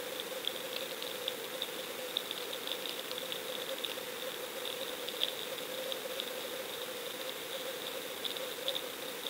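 Underwater audio heard through a camera's waterproof housing: a steady hiss and a low hum, with a constant crackle of small sharp clicks.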